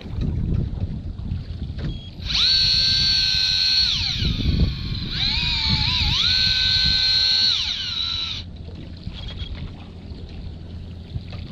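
Electric jigging reel's motor whining as it winds in line. It starts about two seconds in, drops in pitch briefly near the middle, picks up again, then runs down and stops near the end. Low wind and boat noise underneath.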